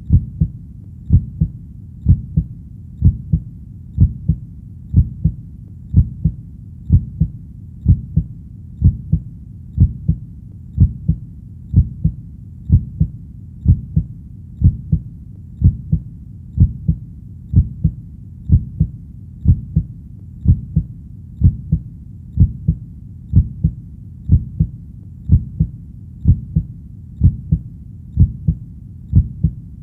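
Heartbeat sound, a steady low double beat (lub-dub) repeating about once a second, around 60 beats a minute, with no change in pace or strength.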